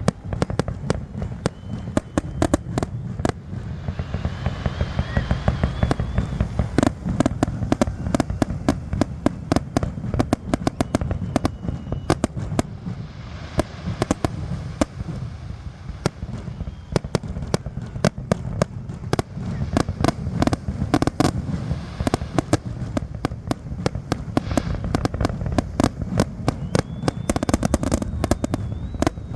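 Fireworks display: a rapid, unbroken barrage of bangs and crackling over a steady low rumble, with a few rising whistles from shells going up.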